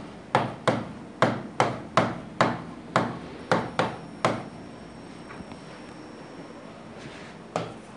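Pen tapping and knocking on the screen of an interactive display board during handwriting: a quick run of about a dozen sharp taps, a pause of about three seconds, then one more tap near the end.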